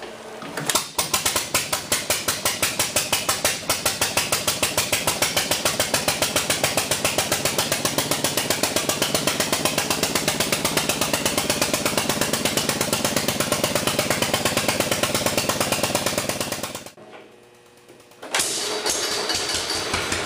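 A 1946 Wisconsin model AHH single-cylinder, air-cooled engine running, its single cylinder firing in a fast, even beat. The sound cuts off abruptly about 17 seconds in, and the engine is heard running again about a second and a half later.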